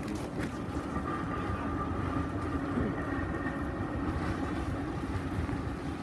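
Steady rush of a fast-flowing river, a continuous low rumble with a faint steady hum running through it.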